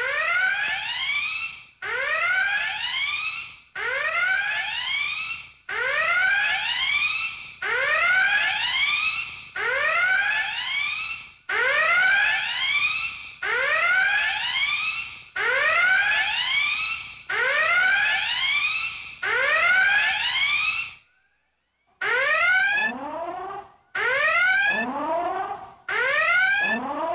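Star Trek original-series alert klaxon: a whooping tone that rises in pitch, repeated about every two seconds. After a short break near the end it starts again in a quicker series.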